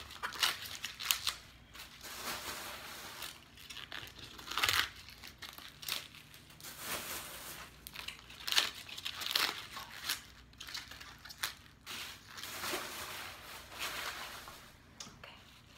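Fresh collard green leaves crinkling and rustling as they are handled and torn from their stems, in irregular crisp bursts with short pauses.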